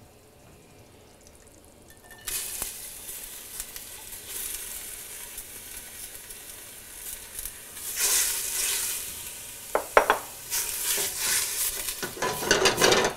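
Finely chopped onions hitting hot olive oil in a stainless steel pot and sizzling, starting about two seconds in, then stirred, with a few sharp knocks against the pot about ten seconds in.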